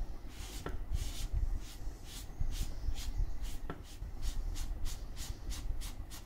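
Sponge rubbed back and forth over crayon-coloured paper to blend the colour, a run of short scratchy strokes that settles into about three a second.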